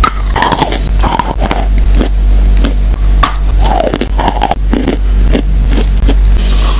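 A stick of stationery chalk is bitten and chewed close to the microphone: repeated crisp crunches and gritty chewing over a steady low hum.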